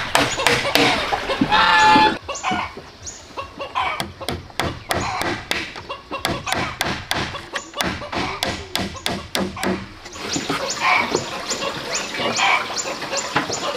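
Hammer driving nails through wooden planks into a log frame: a long run of steady, sharp strikes, about three a second.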